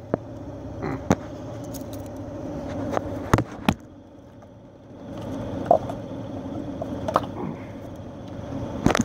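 Scattered sharp clicks and knocks of plastic engine parts as a car's ignition coil pack is worked loose by hand, over a steady hum.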